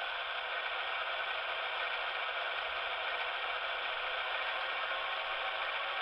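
Sound from the on-board speaker of a Broadway Limited Imports Paragon DCC-sound HO model of a GE AC6000CW: the recorded diesel engine of the locomotive running steadily. It comes out thin and hissy, with no bass.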